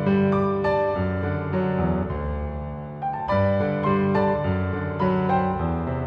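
Gentle solo piano instrumental music.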